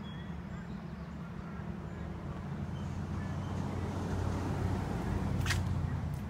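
Low engine rumble swelling to a peak about five seconds in, with faint bird chirps and one sharp click near the end.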